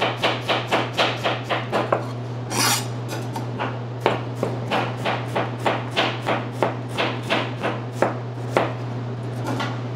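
Kitchen knife chopping a Spanish onion on a cutting board: quick, even knife strokes about five a second for the first two seconds, then slightly slower cuts, with a steady low hum underneath.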